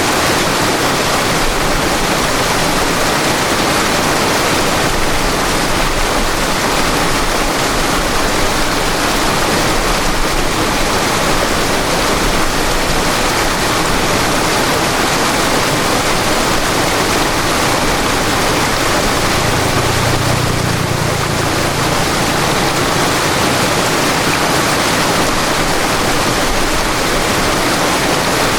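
River water rushing and splashing in a steady, continuous stream. A brief low rumble swells about two-thirds of the way through.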